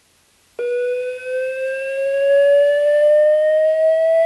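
Physio-Control LifePak 1000 AED charging tone: a loud steady tone that starts about half a second in and slowly rises in pitch, the sign that a shock is advised and the defibrillator is charging to deliver it.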